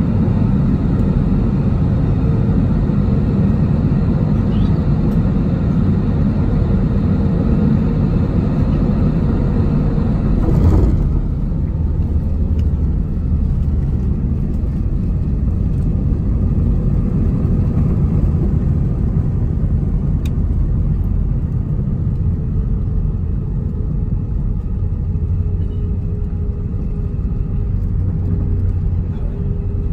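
Airbus A320 cabin noise on landing: a steady low rumble of engines and rushing air, then a sharp thump about eleven seconds in as the wheels touch down. After it the hiss drops away and a darker rumble goes on as the aircraft rolls and slows on the runway.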